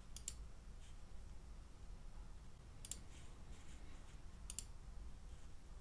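Faint computer mouse clicks: three quick pairs of sharp clicks spread over a few seconds, over a steady low hum.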